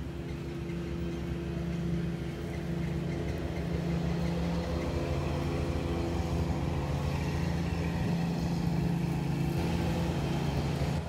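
Lawnmower engines running steadily in a drone that grows a little louder about two seconds in.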